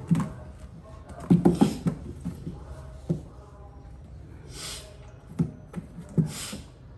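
A baby monkey's hands and feet thumping and tapping on a hollow box as it scrambles about, a cluster of knocks about a second and a half in and single ones later. Two short hissing sounds come near the end.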